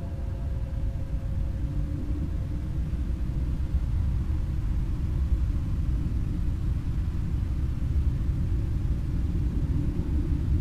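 Dark ambient sound bed: a deep, steady rumble with no melody, growing a little louder about four seconds in.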